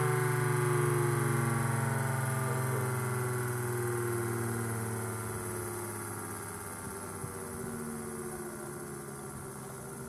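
Electromechanical siren winding down: its multi-toned wail falls slowly and steadily in pitch and fades as the rotor coasts toward a stop.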